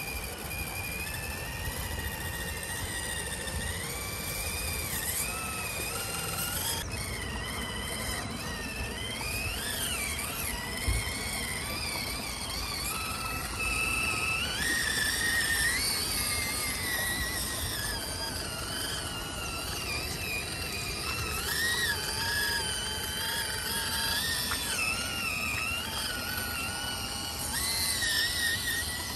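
High whine of a small RC crawler's electric motor and gearbox while it drives, the pitch rising and falling constantly. One short knock about eleven seconds in.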